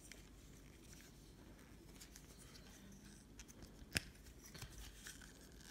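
Near silence with faint clicks from the plastic parts of a Transformers Power of the Primes Dinobot figure as it is handled and transformed. One sharper click comes about four seconds in.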